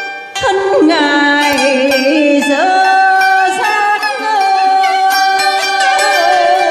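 Traditional Vietnamese music: plucked đàn tranh zither notes that bend in pitch, then a long held melodic note that wavers near the end.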